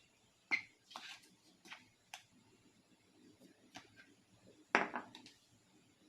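Kitchen utensils and dishes being handled: irregular light clicks, taps and short scrapes, with a louder clatter about three-quarters of the way through.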